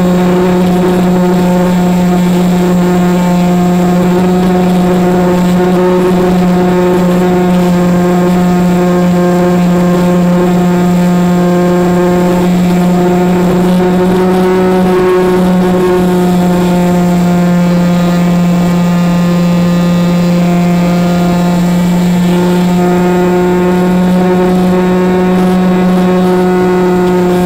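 RC model plane's motor and propeller running at steady throttle, recorded by an onboard camera: a loud, steady drone with only slight wavering in pitch.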